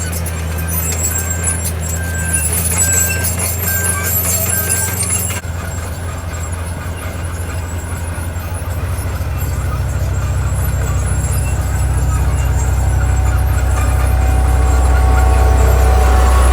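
Diesel engine of heavy earthmoving machinery running with a deep steady drone, with a reversing alarm beeping about once a second for the first five seconds. After an abrupt change about five seconds in, the engine grows gradually louder toward the end.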